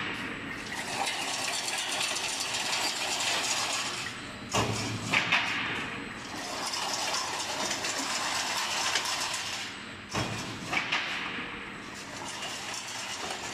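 Double-motor chain link fence machine running as it weaves wire mesh: a steady mechanical whirr and rattle. A short cluster of sharp clanks comes about every five to six seconds.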